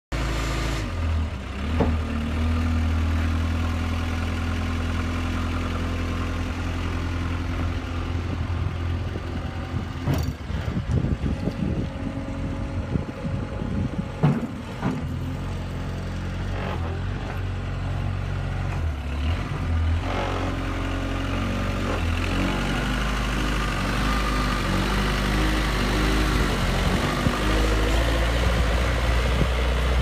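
JCB Robot 170 skid steer's diesel engine running throughout, its note rising and falling unevenly, with some clunks, through the middle while the single loader arm lifts the bucket, then running more steadily as the machine drives off near the end.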